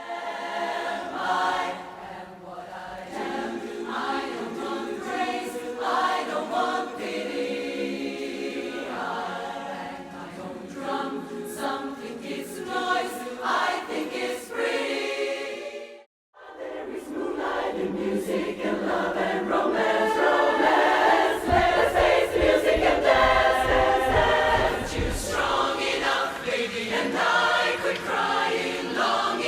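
Women's barbershop chorus singing in close four-part harmony. The singing breaks off briefly about halfway through, then resumes louder and fuller.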